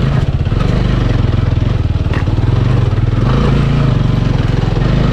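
Motorcycle engine running steadily under load, a low chugging note with rapid firing pulses, as the bike is ridden along an off-road trail.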